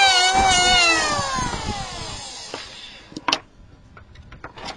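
Electric hand planer switched off, its motor whine falling steadily in pitch as it spins down over about two seconds. A sharp knock about three seconds in, followed by a few light taps.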